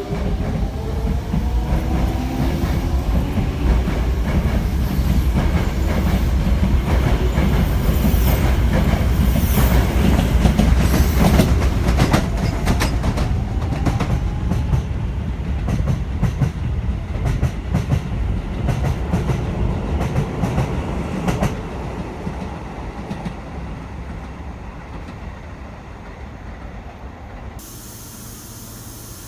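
Electric commuter train passing through a station: a rising motor whine, then wheels clacking over rail joints, loudest about halfway through, after which it fades away.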